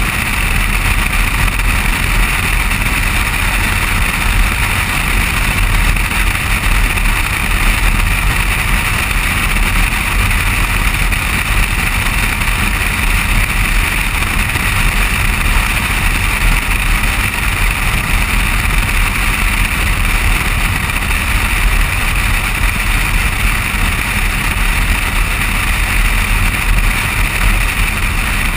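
Steady wind and tyre noise of a vehicle driving at speed on an asphalt road, picked up by a GoPro HD Hero2 mounted on the outside of the vehicle beside the front wheel, with a deep rumble underneath.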